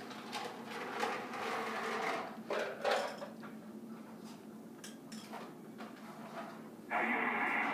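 A few light knocks and clicks, then about seven seconds in the Galaxy DX2527 radio's speaker cuts in suddenly with static-laden received audio.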